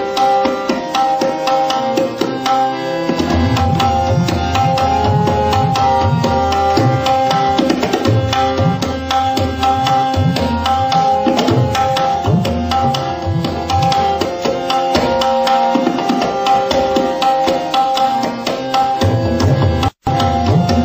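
Tabla solo in teentaal: fast, dense strokes on the dayan, with the bayan's bass strokes bending in pitch from about three seconds in, over a repeating lehra melody. The sound cuts out for an instant near the end.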